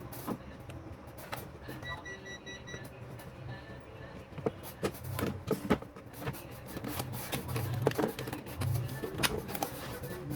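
Irregular clicks and knocks of small tools and parts being handled at a workbench, over a low hum, with a short pulsing electronic beep about two seconds in.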